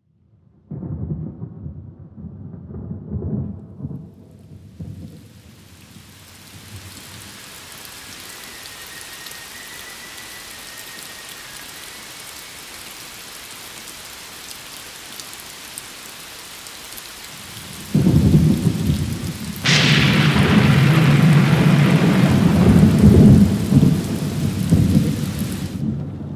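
Steady heavy rain with thunder: a low rumble at the start, then near the end a loud thunderclap, a sharp crack followed by a long rolling rumble.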